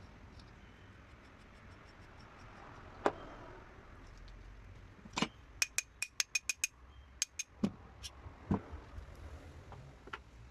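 Metal tools and engine parts clinking and knocking during hand work on an engine. A single knock comes about three seconds in, then a quick run of sharp ringing metallic clicks at about seven a second, and a few scattered knocks near the end.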